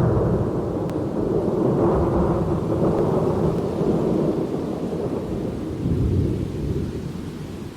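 Thunder rolling: a long, loud rumble that swells again about six seconds in and eases near the end.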